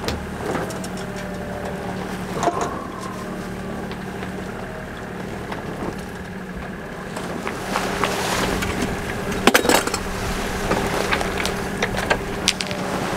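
A sailboat's inboard engine running at a steady pitch while the boat is under way, over wind and water noise, with a few knocks and rattles about eight to ten seconds in.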